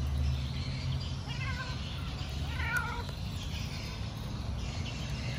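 A cat meowing twice, short arching calls about a second and a half in and again a little over a second later, over a low steady rumble.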